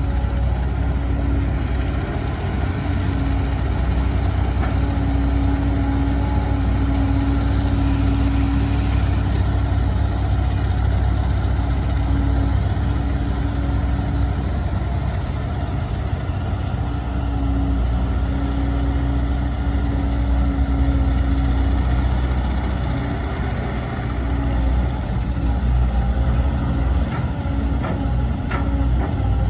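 Volvo EC200D excavator's diesel engine running steadily, with a humming tone that swells and fades as it works. A few sharp clicks or knocks come near the end.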